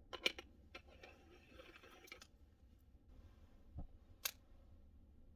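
Faint handling sounds of an aluminium moka pot: a few sharp metal clicks, then a short stretch of scraping. About four seconds in comes a low thump and a loud sharp click as a small gas camp stove is lit.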